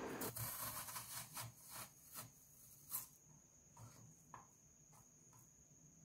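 Potato being slid slowly across the blade of a plastic mandoline slicer: about a dozen faint, short scraping strokes, each one a slice coming off. The strokes come quicker in the first half and thin out later, the loudest about three seconds in.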